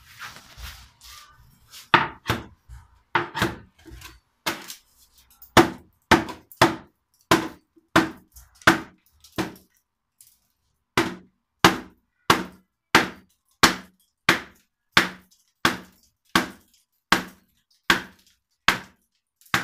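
Hammer blows against termite-eaten wooden battens under a concrete ceiling, knocking the wood loose: a steady run of hard knocks, about three every two seconds, with a short pause about ten seconds in.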